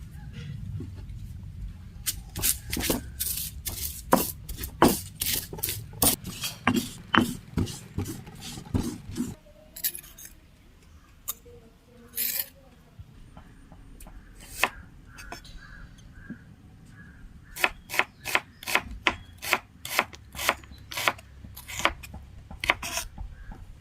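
Knife chopping food on a wooden board: sharp strokes about two a second, in two runs with a sparser stretch between them.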